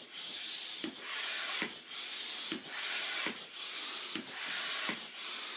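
Hand-operated floor pump inflating a balloon: a rasping rush of air on each stroke, with a short knock as the stroke turns, about one stroke every 0.8 seconds.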